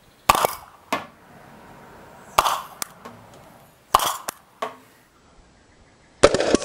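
Compressed green-gas 40mm launcher engine firing: four sharp, loud pops of gas discharge spread over a few seconds, with smaller clicks between them.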